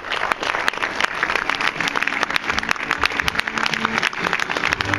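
A large audience applauding, a dense continuous patter of many hands clapping.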